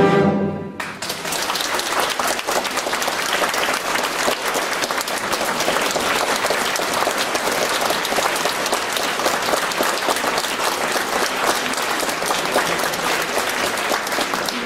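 A symphony orchestra's closing chord stops less than a second in, and an audience breaks into steady applause.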